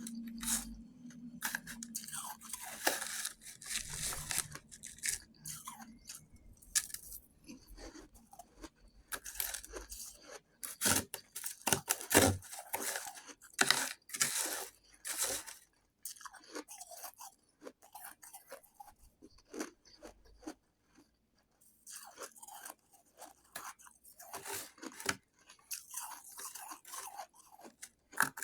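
Close-miked crunching and chewing of shaved ice, in irregular bites and chews, with a quieter, sparser stretch midway.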